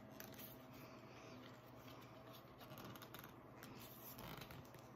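Faint rubbing and small clicks of a plastic ski-pole basket being twisted and forced onto the tip of a Black Diamond Expedition 3 pole.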